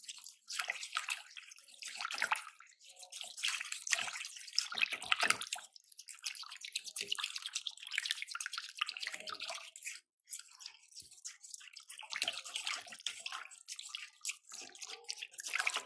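Small hand whisk beating yogurt fast in a glass bowl: a wet, irregular swishing and slapping, with a short pause about ten seconds in. The yogurt is being beaten with sugar and chaat masala until smooth and the sugar dissolves.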